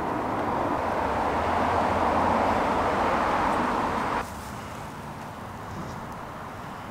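Steady road-traffic noise that swells, then cuts off abruptly about four seconds in, leaving a fainter outdoor hush.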